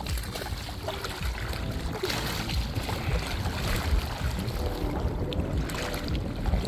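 Wind buffeting the microphone, an uneven low rumble over a steady rushing hiss.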